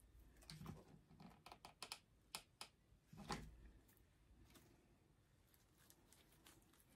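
Faint scattered clicks and rustles of hands handling artificial tulip stems, most of them in the first half and then near silence.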